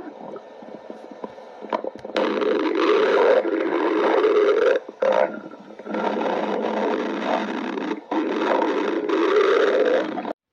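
Human stomach growling: soft rumbling at first, then from about two seconds in a series of long, loud gurgling growls with short breaks between them, cutting off suddenly near the end.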